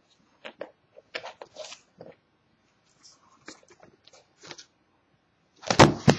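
Light crinkles and taps from the plastic shrink-wrap of a sealed trading-card box turned in the hands. Near the end comes a louder rustle and knock as the box is set down.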